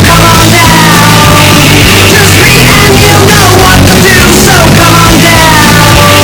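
Loud rock music with singing over a steady bass line, filling the whole track.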